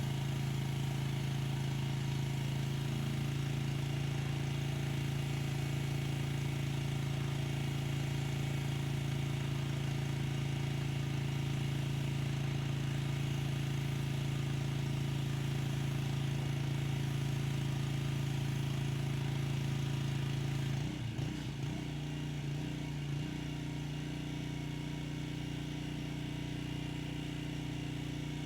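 Pressure washer's small engine running steadily with a constant hum. About three quarters of the way through, the note wavers briefly and then settles a little quieter.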